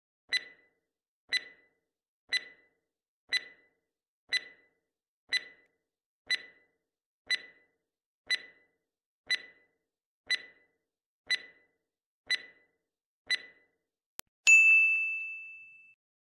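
Quiz countdown timer sound effect: a short tick once a second, fourteen times, then a brief click and a bright bell-like ding that rings out for about a second and a half as time runs out and the answer is revealed.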